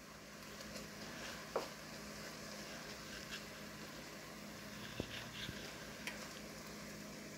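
Broccoli sizzling faintly in a frying pan, with a few light clicks of fingers and a plastic spatula against the pan.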